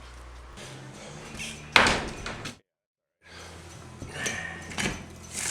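One sharp, loud bang a little under two seconds in, ringing off briefly, followed after a gap by a few lighter knocks and clatter.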